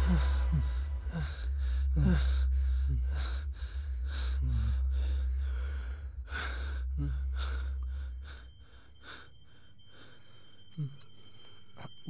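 A man breathing fast and heavily with short gasps and sighs, over a low steady hum that fades out about eight seconds in.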